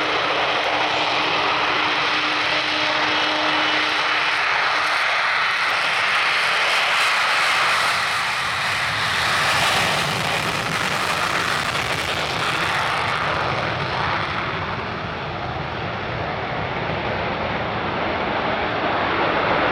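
Avro Vulcan's four Rolls-Royce Olympus turbojets at takeoff power, a loud, steady jet roar as the bomber rolls down the runway and lifts off. The hiss is brightest in the middle and eases a little later on.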